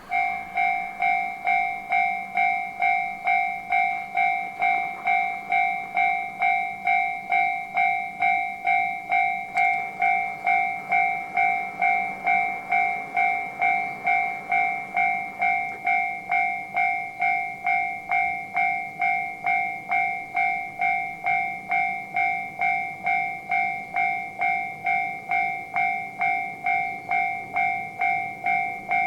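Japanese railway level-crossing warning bell ringing in an even two-tone pulse, about two strokes a second, the signal that a train is approaching. It starts abruptly and keeps a steady beat.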